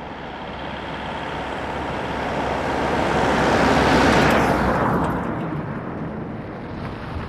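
A road vehicle driving past: its noise builds steadily to a peak about four seconds in, then fades away.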